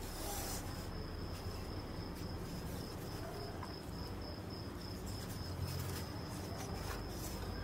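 Insect trilling steadily, a high, evenly pulsing tone, over a low background hum.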